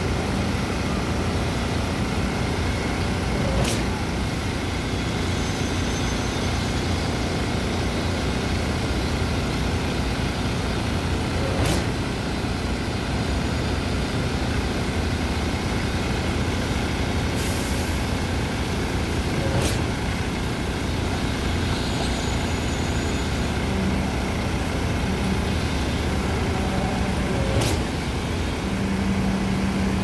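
Truck-mounted Schwing SX 42M concrete pump running steadily while pumping concrete through its boom, with a sharp knock about every eight seconds as the pump changes stroke. There is a brief hiss about halfway through.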